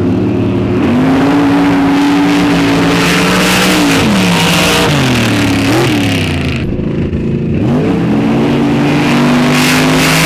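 Racing vehicle engine revving hard on a drag run: the revs climb and hold high, drop off about four to five seconds in with a quick blip near six seconds, then climb and hold high again from about eight seconds in.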